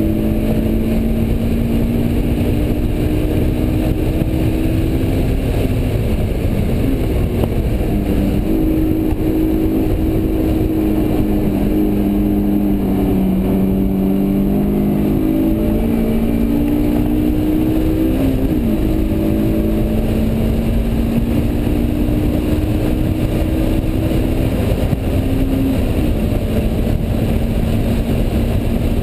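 Interior sound of a 2004 Honda S2000's 2.2-litre inline-four engine at speed on a track lap, its pitch climbing and dropping repeatedly as the driver works through the gears and brakes for corners, over a steady haze of tyre and wind noise inside the cabin.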